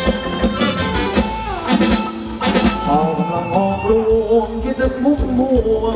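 Live Thai ramwong dance band playing an upbeat song over a steady drum beat, with a wavering lead melody coming in about halfway through.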